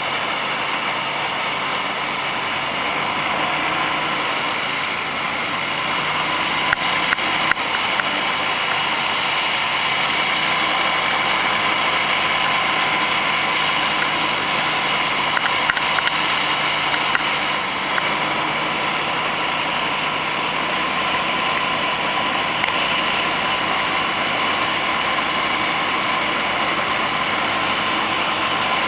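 Gator-Tail surface-drive mud motor running steadily at speed, with wind and water rushing past. A few brief sharp knocks come in twice.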